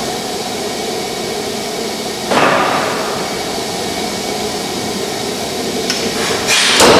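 Power hammer's machinery running with a steady hiss that jumps up suddenly about two seconds in, then a single sharp strike near the end as the hammer comes down on a steel nut.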